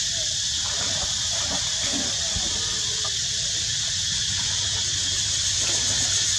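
Steady, high-pitched buzzing drone of an insect chorus, with a low rumble underneath.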